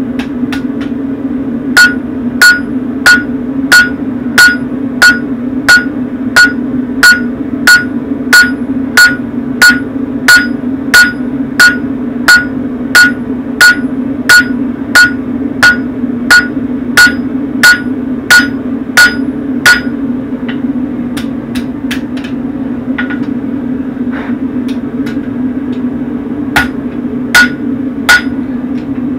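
Hand hammer striking hot horseshoe steel on a Hay Budden anvil while drawing it out: a steady run of ringing blows about one and a half a second, then a few lighter taps and three more hard blows near the end. A gas forge burner runs steadily underneath.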